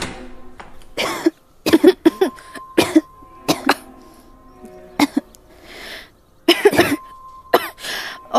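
Girls coughing in repeated short fits, about eight coughs, brought on by the dust of a long-closed room.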